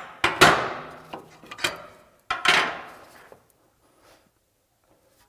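Metal tools clanking against metal during wheel hub reassembly: about four sharp strikes in the first two and a half seconds, each ringing out briefly, with a few lighter knocks between them, then quiet.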